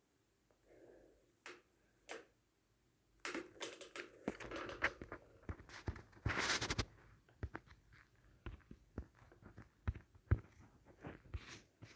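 Irregular rustling, scratching and clicks of something being handled, busiest in the middle, with one longer rustle about six and a half seconds in.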